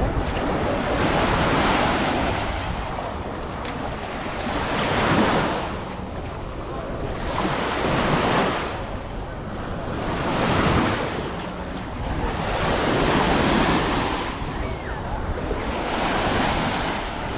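Small waves breaking and washing up on a sandy beach, a swell of surf about every three seconds, with wind buffeting the microphone.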